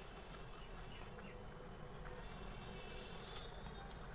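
Faint eating sounds: a few small clicks of a fork and mouth sounds over a steady low background hum.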